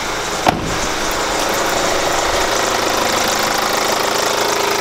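Kia Grand Carnival engine idling with a fast, cricket-like chirping mixed into the engine note, which the mechanic traces to a failing crankshaft damper pulley. A single thump about half a second in, like a car door shutting.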